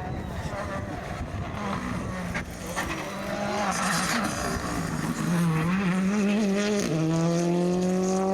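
Rally car engine accelerating hard, its pitch climbing, with a quick upshift about seven seconds in before it climbs again. The engine gets louder from about five seconds in.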